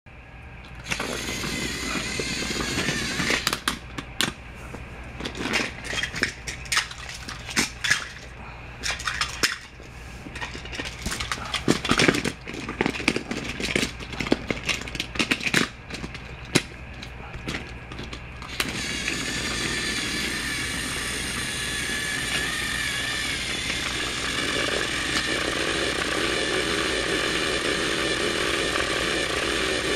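Irregular clicks and knocks for the first two-thirds, then a battery-powered motorized Thomas the Tank Engine toy train starts up and its small electric motor and gears run with a steady whine. The train is driven in reverse by a battery fitted backward.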